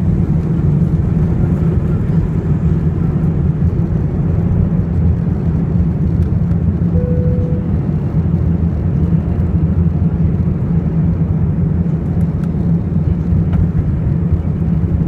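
Cabin noise of an Airbus A321 at takeoff thrust, heard from a window seat over the wing: the steady low roar of the engines and airflow as the plane lifts off and climbs out. A brief steady tone sounds about seven seconds in.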